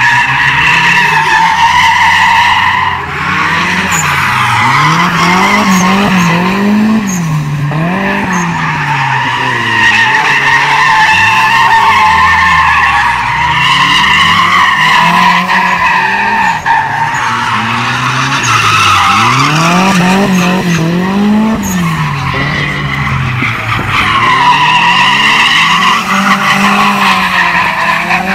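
Car tyres squealing without a break as cars drift in circles and do burnouts, the engine revving up and down over and over.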